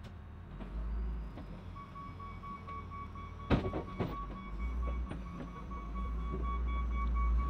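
A piece of heavy equipment moving in: its engine rumbles and grows louder toward the end, and its backup alarm starts beeping steadily about two seconds in. A sharp metal clank comes about halfway through.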